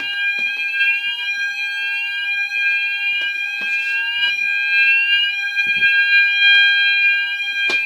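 Fire alarm sounders going off during a fire alarm system test set off from a manual call point: a steady high tone sounding together with a rising sweep that repeats about once a second. Quite loud.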